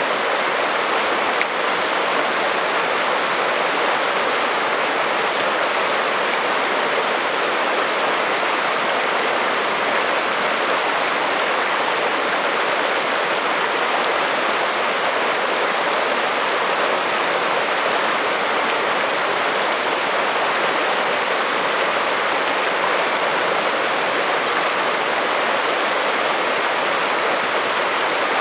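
Shallow alpine stream running over rocks and cobbles: a steady, unbroken rush of water.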